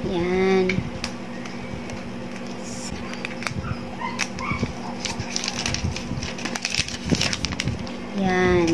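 Clicks, taps and rustles of a smartphone's cardboard box and plastic wrapping being handled as the phone is lifted out. A short whining call sounds at the start and again near the end, and these are the loudest sounds.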